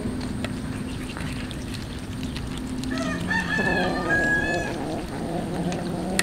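A rooster crows once, a drawn-out call about halfway through, over cats chewing and tearing raw tuna with small wet clicks. A low steady hum runs underneath.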